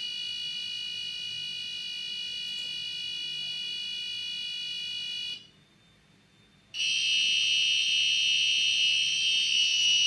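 Passive buzzer on an Arduino giving a steady buzzing tone, its pin switched on and off every millisecond. The tone cuts off about five and a half seconds in while new code uploads. It comes back about a second later, louder and with a different pitch, now driven with a 2 ms on-off time.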